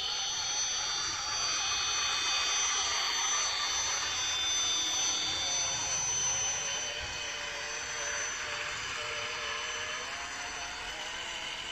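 Electric motors and geared drivetrains of radio-controlled scale trucks whining as they drive: several steady high-pitched whines, with a lower whine that wavers up and down in pitch in the second half.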